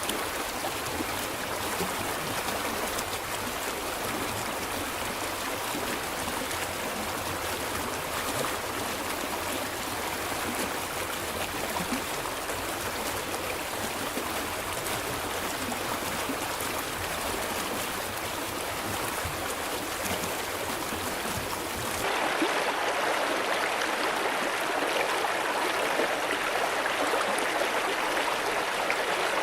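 A stream of running water babbling steadily. About three-quarters of the way through, the sound changes abruptly to a louder, brighter rush of water.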